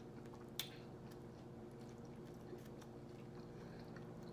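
Quiet chewing with small wet mouth clicks, and one sharp click about half a second in, over a steady low hum.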